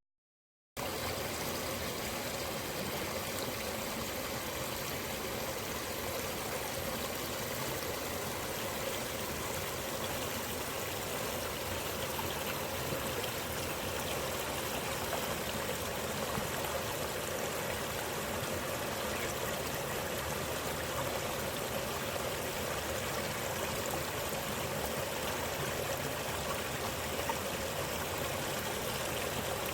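Steady rushing of running water, like a small stream, starting after a brief silence about a second in.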